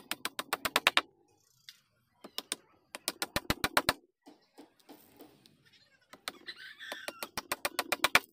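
A hammer tapping rapidly on wood in three quick runs of blows, about ten a second, with short pauses between.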